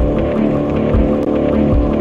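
Electronic music: sustained synth tones with a deep kick drum about once a second and light ticking percussion above.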